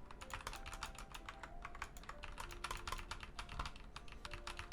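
Rapid typing on a computer keyboard: a dense, fast run of clicks, picked up through a Maono AU-GM30 gooseneck microphone.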